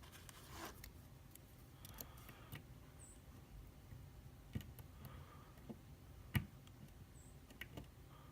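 Faint, irregular clicks of a lock pick and tension wrench working the pin stack of a Wilka euro cylinder, with the sharpest click about six seconds in.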